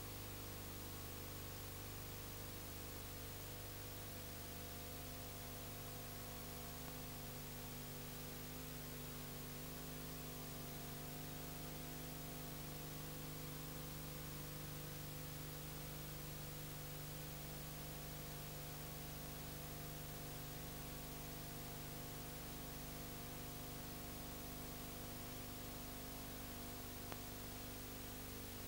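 Steady hum made of several fixed tones, over an even hiss, with nothing else heard: the noise floor of a silent film's transfer.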